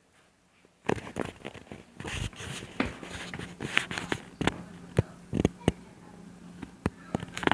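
Irregular knocks and clicks of someone moving about while carrying the camera, starting about a second in, with a faint steady hum underneath.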